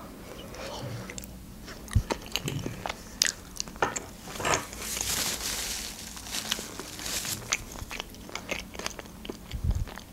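Close-up eating sounds: a mouthful of Olivier salad being chewed with small wet mouth clicks. About halfway through, a soft rustling of a paper napkin being rubbed over the lips.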